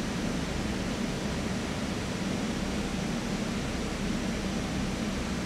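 Steady hum and hiss of a stopped R44 subway train's ventilation and auxiliary equipment, with a low hum under an even hiss.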